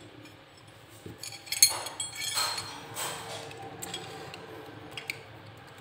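Metal wood drill bits clinking against each other as they are handled, a few light, scattered clicks with a short metallic ring.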